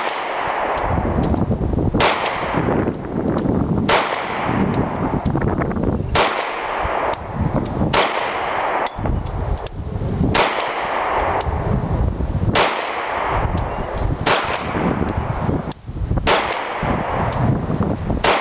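An FN FNX-45 .45 ACP semi-automatic pistol fired slowly and steadily, about nine shots roughly two seconds apart. Each shot trails off in a long echo.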